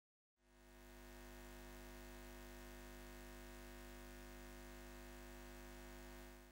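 Faint, steady electrical hum of a neon-sign sound effect, fading in about half a second in and fading out at the end.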